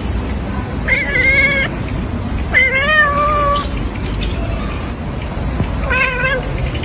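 A cat meowing loudly in three drawn-out yowls, the middle one the longest with a wavering pitch, over a steady low rumble.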